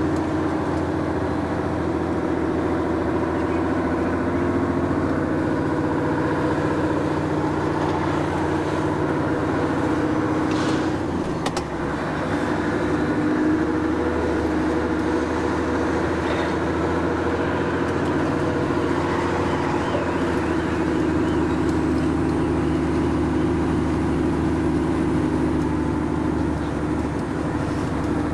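Mercedes-Benz Actros lorry's diesel engine running while the truck drives slowly, heard from inside the cab. The engine note dips briefly about eleven seconds in and then carries on at a slightly different pitch.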